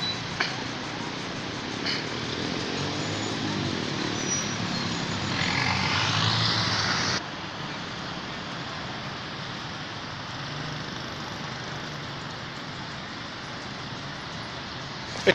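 Steady outdoor background noise with a few faint clicks. A louder rushing sound builds for about two seconds and cuts off abruptly about seven seconds in.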